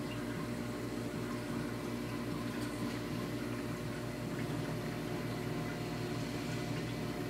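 Steady hum of a reef aquarium's pumps, with water bubbling and running through the tank.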